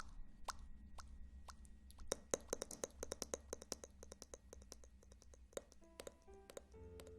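Quick, irregular ASMR clicks and pops, densest a couple of seconds in, over soft ambient music; held musical tones come in near the end.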